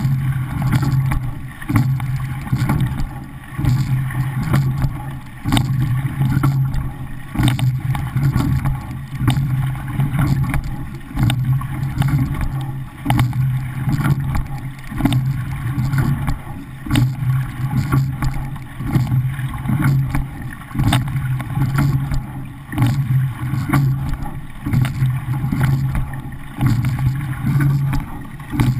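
Racing rowing shell (a men's coxless pair) under way at race pace: water rushing past the hull under a steady low rumble. It surges rhythmically about every 1.7 seconds, once each stroke, with a light knock at each stroke.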